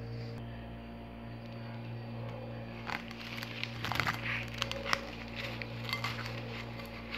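Plastic cling film crinkling and crackling in an irregular run from about three seconds in, over a steady low hum.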